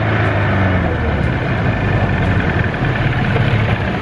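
Outboard motor of a small boat running steadily under way, with water rushing along the hull; the engine note fades out near the end.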